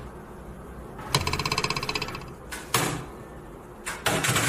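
A computer keyboard being mashed by a Shiba Inu's paws: a fast run of clattering taps lasting about a second, then a few separate clacks.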